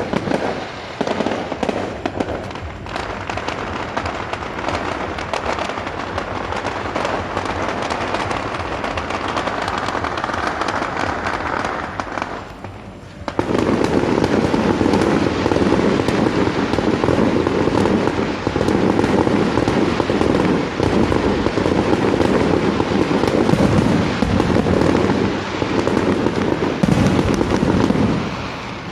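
Fireworks display going off in a dense, continuous barrage of crackles and bangs. It drops briefly about twelve seconds in, then comes back louder and fuller.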